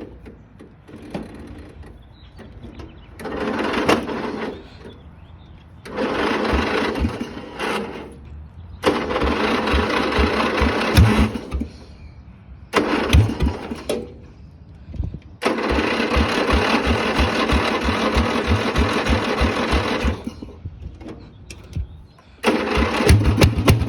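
Sears ST10 garden tractor's failing starter cranking the engine in about five separate grinding bursts, with slow compression thumps; the longest lasts about five seconds. About 22 seconds in the engine catches and runs.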